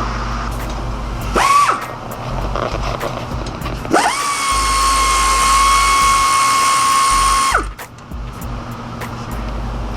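A handheld power tool briefly spins up and stops, then about four seconds in runs up to a steady high whine for some three and a half seconds before winding down. It is working on the hardware of the old brakes as they come off.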